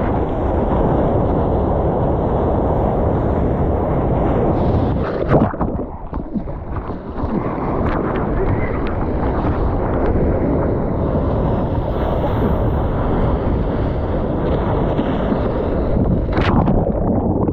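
Rushing surf and wind on a handheld action camera's microphone as a surfer paddles into and rides a wave, with a sharp splash about five seconds in and a briefly quieter stretch after it.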